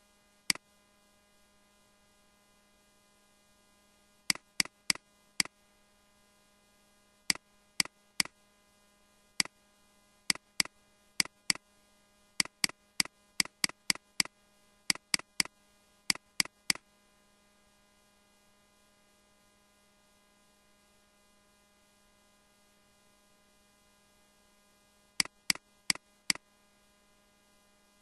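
Computer mouse button clicking in irregular clusters, each click a sharp press followed by a softer release, with long gaps between the clusters. A steady electrical hum lies underneath.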